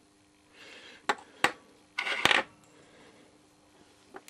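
Metal parts of the beacon's tube and battery clicking and clinking as they are handled: a couple of sharp clicks, then a short rattle with a click about two seconds in, and a faint click near the end.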